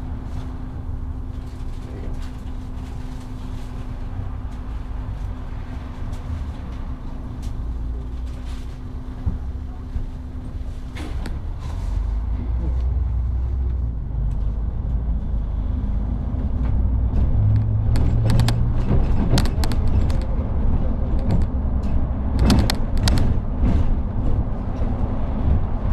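City bus heard from inside the cabin, idling at a stop with a steady hum. About eleven seconds in, a click sounds and the hum stops. The engine then pulls away, its rumble growing louder as the bus gathers speed, with a few sharp clicks and knocks.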